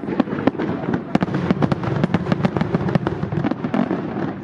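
Aerial fireworks display: a rapid, dense run of sharp bangs and crackles from bursting shells, several reports a second.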